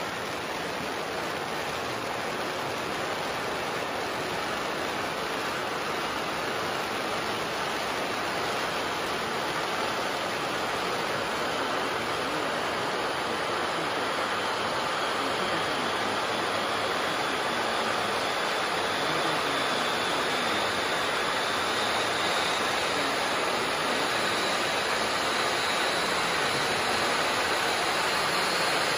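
Three Celtic Fireworks 'Tears of an Angel' firework fountains burning together with a steady, rushing hiss of sparks that slowly grows louder, with a faint high whistle creeping upward in pitch over the second half.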